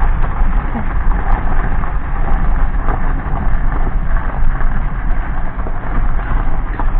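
Car tyres crunching over gravel, with scattered small pops of stones, over the car's steady low rumble heard from inside the cabin.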